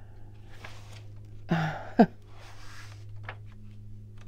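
Pages of a children's picture book being turned and handled: paper rustling with soft taps and a sharper, louder handling sound about two seconds in. A steady low hum sits underneath.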